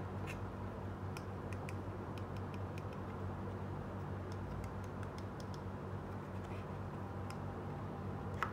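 Light clicks and taps of a small plastic toy cupboard being handled, about a dozen scattered through, with a sharper click near the end, over a steady low hum.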